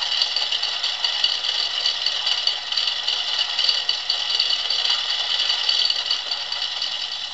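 Recorded car engine played from a flexi-disc through a small portable record player's speaker, with a steady, fast metallic clattering from a very noisy distributor. The clatter comes from the distributor's bobweights. It eases slightly near the end.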